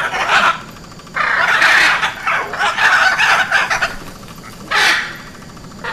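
Hyacinth macaw giving loud, harsh squawks in several bursts: a short call, then two drawn-out calls of about a second each, and a short sharp call near the end.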